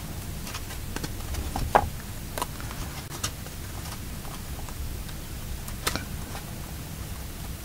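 A few scattered light clicks and taps of paper sheets and a cardboard cover being handled as a needle and thread are worked through a stack of pages, over a low steady hum.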